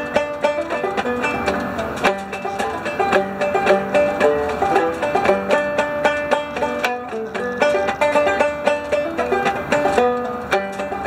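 Banjo picked in a continuous run of bright plucked notes, playing a tune.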